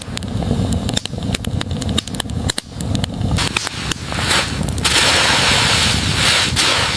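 Campfire crackling and popping: many sharp, irregular snaps over a low rumble. A loud steady hiss joins in for the last two seconds.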